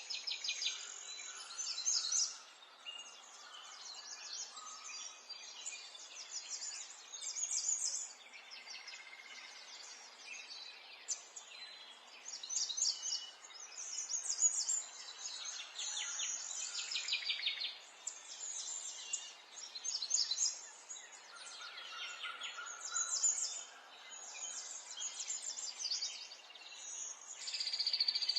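Several small songbirds chirping and twittering in quick overlapping phrases of short notes and trills, over a faint steady outdoor hiss.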